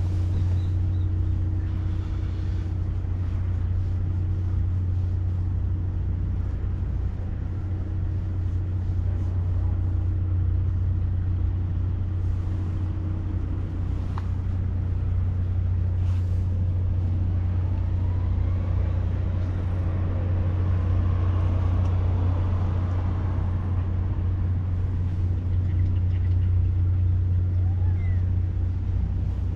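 A steady low hum, unchanging, with a fainter steady tone above it.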